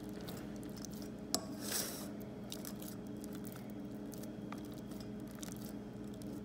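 A hand pressing and spreading dough in a metal cake pan: soft rubbing and squishing, with one sharp click of the pan about a second in and a few small ticks, over a steady low hum.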